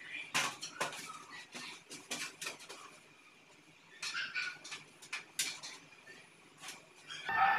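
Electrical wire being gripped, tugged and fed through a conduit in a wall, making scattered clicks, rustles and scrapes, with a lull about three seconds in.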